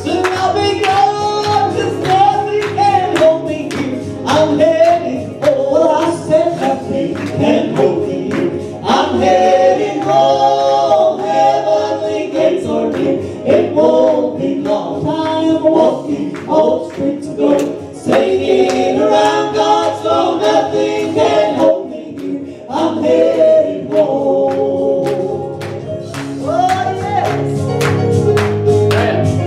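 Live gospel song: several voices singing together over instrumental accompaniment with a steady pulse.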